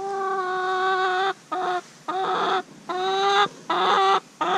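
A young chicken calling: a series of about six drawn-out, steady-pitched calls, the first over a second long and the rest shorter.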